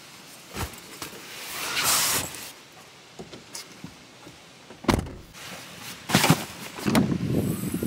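Packing and handling noises: a few sharp knocks and thumps, and a longer sliding, scraping rustle about two seconds in. Near the end a low rushing noise starts.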